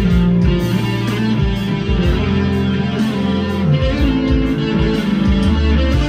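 PRS 245 electric guitar played with a pick through high-gain distortion: fast up-tempo riffing with sustained distorted chords and notes that change every second or so.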